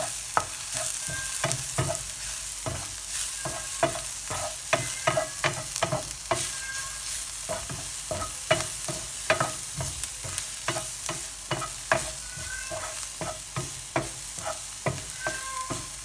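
Chopped onions sizzling in hot olive oil in a frying pan, stirred with a utensil that clicks and scrapes against the pan about twice a second.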